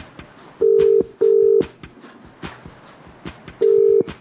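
Telephone ringback tone heard down the line: two 'ring-ring' pairs, each of two short steady beeps, the pairs about three seconds apart. Faint clicks tick in between.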